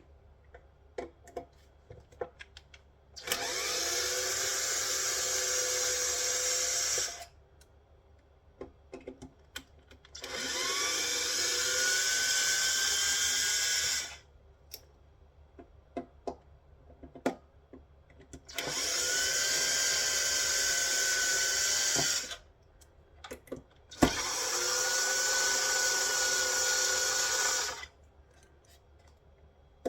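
Power drill running in four bursts of about four seconds each, its motor whining up to speed at each start and then holding steady. Small clicks and knocks of handling come in the pauses between bursts.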